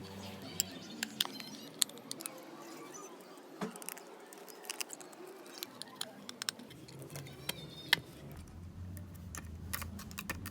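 Irregular light clicks and taps of small metal parts and tools being handled while a motorcycle horn is worked on during its repair, with a few sharper clicks standing out about two seconds in and again near eight seconds.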